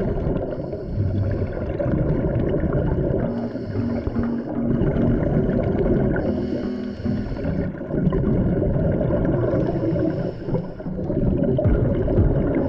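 Underwater sound of scuba diving: a steady low bubbling rumble, with a regulator hiss coming and going about every three seconds as the diver breathes.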